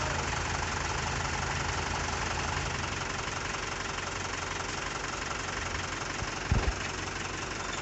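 Mahindra diesel tractor engine idling steadily, with two short knocks about six and a half seconds in.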